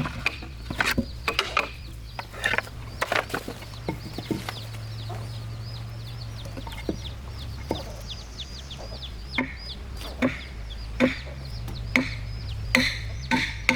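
Chickens clucking, with a long run of rapid, high, falling peeps in the middle. Scattered sharp knocks and a steady low hum sound throughout.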